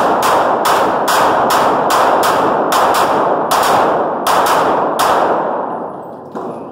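Rapid pistol fire from two shooters, a Glock 19 in 9mm and a .45 ACP pistol, about a dozen shots in quick succession, each ringing with echo off the concrete walls of an indoor range. The last shot comes about five seconds in, followed by the echo dying away and a smaller knock near the end.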